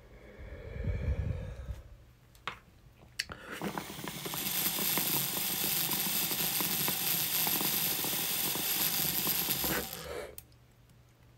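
A person blows out a short breath, then from about three and a half seconds in draws a long, steady pull through a water-filled glass dab rig, the water bubbling and air rushing for about six seconds before it stops sharply.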